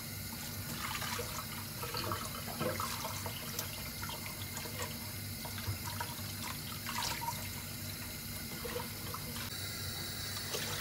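Kitchen tap running in a steady stream into a stainless steel sink while leafy vegetables are rinsed by hand in a bowl, with scattered light splashes and knocks.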